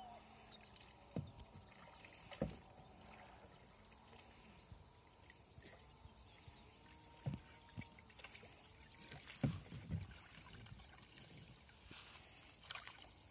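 Double-bladed kayak paddle dipping into calm water: a handful of short, soft splashes at irregular intervals, a few of them louder.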